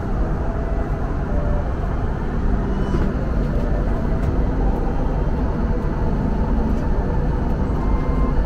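Steady cabin noise of a jet airliner in flight: an even rush of engines and airflow, strongest in the low range.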